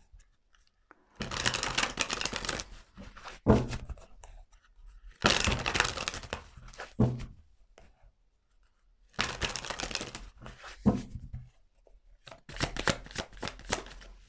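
A deck of tarot cards being shuffled by hand, in about five separate bursts of papery riffling with short pauses and a few sharp taps between them.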